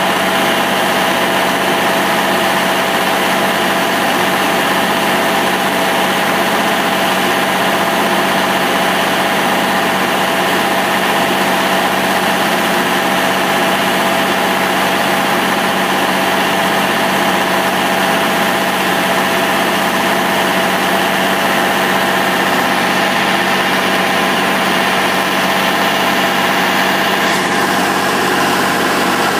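The Toro Progrind 5000 tub grinder's 650-plus-horsepower Cummins diesel engine running steadily, an even, unchanging drone with several steady tones.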